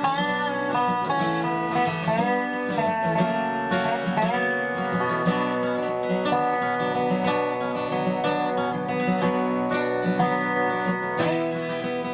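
Instrumental dobro music: a resonator guitar played with a slide, its notes gliding into pitch over a bluegrass-style accompaniment.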